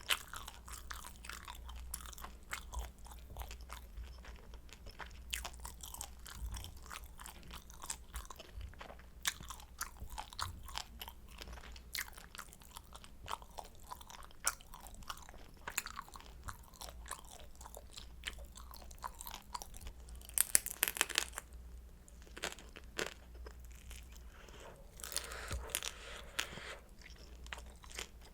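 Close-miked crunchy chewing of crisp pan-fried kimchi dumplings: a steady run of crackles and bites, with a louder burst of crunching about twenty seconds in.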